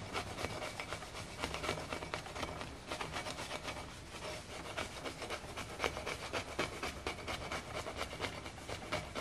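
Putty knife scraping acetone-soaked stickers off a metal oxygen cylinder held in a vise, in quick repeated scraping strokes.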